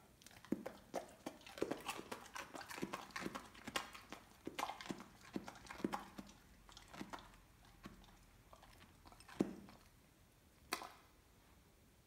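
A Weimaraner crunching a raw carrot stick: quick, irregular crunches for about seven seconds, thinning out to a few last single crunches.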